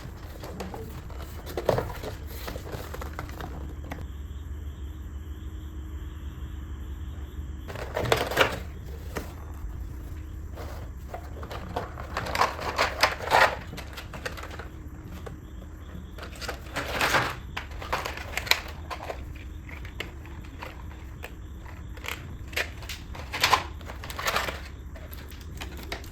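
Packaging being handled and opened: rustling and crinkling of wrapping with occasional knocks of boxes, coming in short bouts several seconds apart over a steady low hum.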